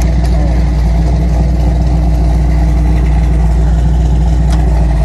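Off-road wrecker's engine idling steadily and loudly, with a couple of faint ticks over it.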